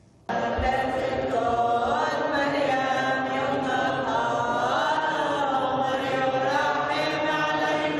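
Church congregation singing a slow liturgical chant together, long held notes gliding up and down in pitch. It cuts in abruptly just after the start.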